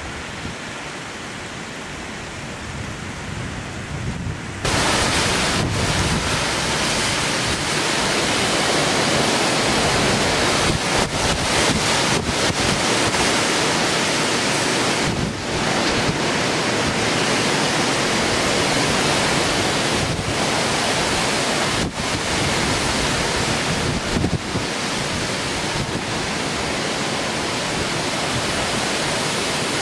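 Hurricane Sandy's storm wind rushing and buffeting the microphone. It is softer at first and becomes much louder about four and a half seconds in.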